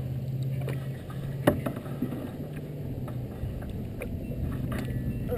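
Kayak paddle strokes with water lapping against the plastic hull of a bow-mounted-camera kayak, one sharp knock about a second and a half in, and a steady low hum underneath.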